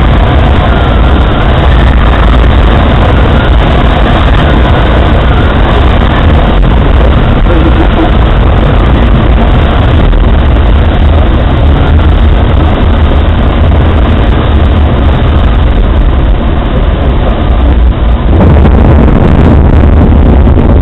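Loud, steady in-flight cockpit noise of a Eurostar microlight: rushing airflow and wind on the microphone over a low rumble. The low rumble steps up near the end.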